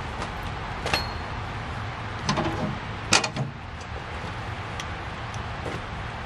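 A few knocks and clanks from handling a white RV water hose and lifting the lid of a campsite utility pedestal, the loudest about three seconds in, over a steady background hiss.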